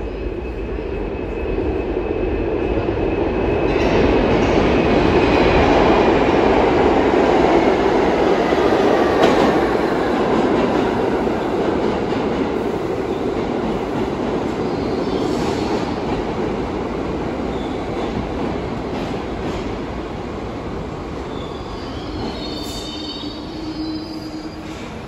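R62A subway train pulling into an underground station and braking to a stop, with a whine that falls in pitch as it slows. The sound builds to its loudest about six to nine seconds in, then settles into a steadier, quieter rumble as the train stands at the platform.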